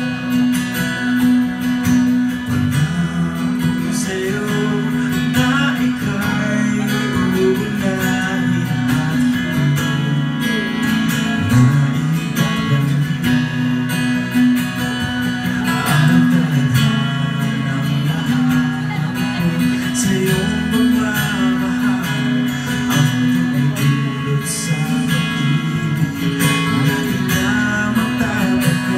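Live ballad music led by a strummed acoustic guitar.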